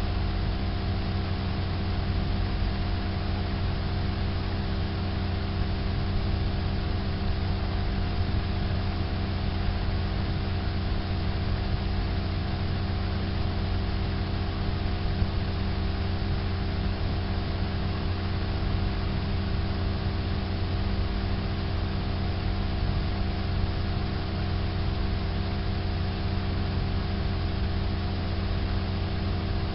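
Steady machine-like hum: a low drone with several held tones over an even hiss.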